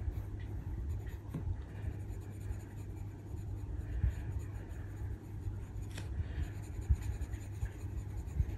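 Oil-based coloured pencil scratching on paper in short, uneven strokes as a small area is filled in, over a low steady hum.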